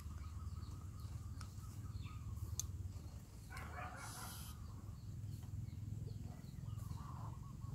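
Faint rural background: a steady low rumble with scattered distant bird and chicken calls. There is a brief rustle about four seconds in, and a few small repeated chirps near the end.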